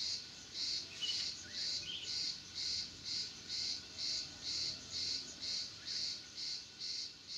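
An insect chirping in an even rhythm of about two high-pitched pulses a second, with a few faint bird chirps about one and two seconds in.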